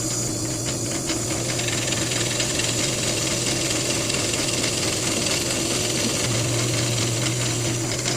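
Woodworking power tool switched on and running steadily, an even motor hum under a dense hiss.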